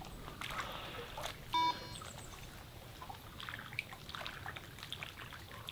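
Faint trickling water by the pond edge, with scattered small clicks and one short pitched beep about one and a half seconds in.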